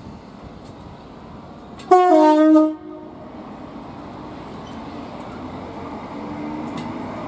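Greater Anglia Class 321 electric multiple unit sounding its two-tone horn about two seconds in: a short, loud blast, high note dropping to a lower one, under a second long. Afterwards the train's running noise grows steadily louder as it moves along the platform.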